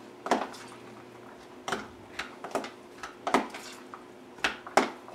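A metal utensil clacking and scraping against a plastic container while diced tomatoes, onion and garlic are stirred together: about seven sharp, irregular clacks.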